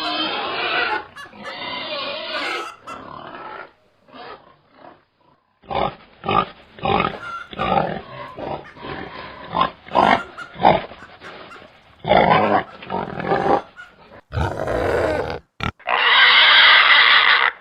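Pigs grunting and oinking: a quick run of short grunts, then a few longer, louder calls near the end.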